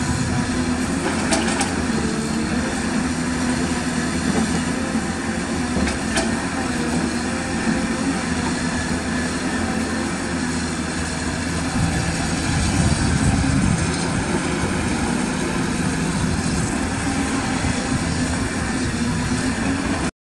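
Caterpillar 320D hydraulic excavator's six-cylinder diesel engine running steadily as the machine works, with a couple of sharp metallic clicks near the start. The engine gets louder for a moment about twelve seconds in.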